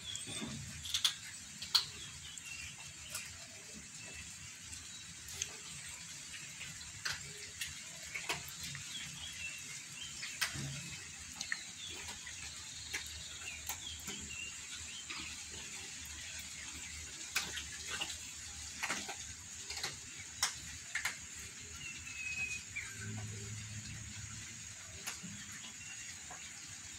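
Several cats crunching dry kibble, a scatter of irregular crisp clicks from chewing and from pieces knocking on the tile floor.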